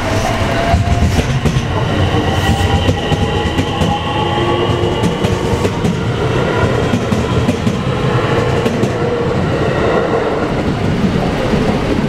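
Electric commuter train passing through a level crossing: wheels clattering over the rail joints under a steady rumble, with a motor whine rising slightly in pitch. The crossing's alarm bell rings over it.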